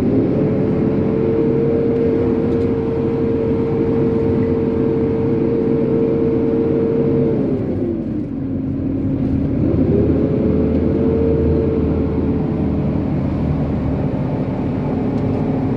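Steady engine and road noise inside a moving semi-truck's cab at highway speed. A droning whine drops lower about seven seconds in and rises back to its earlier pitch near ten seconds.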